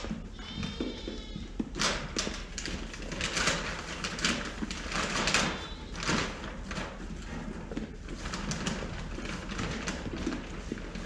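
A sheep bleats once, a wavering call of about a second starting half a second in. Then comes a run of rustling and scraping as feed bags and bins are handled, while a flock of sheep eats at a wooden fenceline feeder.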